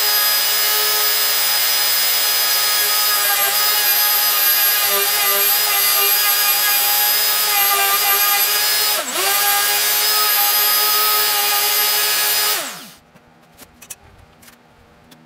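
Trim router running at full speed, its bit cutting wood through a clear acrylic template to hog out a cavity in a guitar body. It holds a steady high whine, and the pitch dips briefly about nine seconds in. Near the end the router is switched off and winds down with a falling pitch, followed by a few faint clicks.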